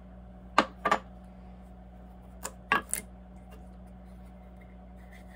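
Metal jar lids clicking against each other and the tabletop as they are picked up and handled. There are two clusters of sharp taps: two about half a second to a second in, and three more around two and a half to three seconds in.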